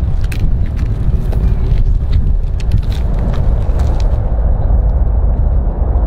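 Four-engine jet airliner's engines heard from afar, a loud deep rumble, with wind crackling on the microphone. The upper hiss and crackle drop away about four seconds in.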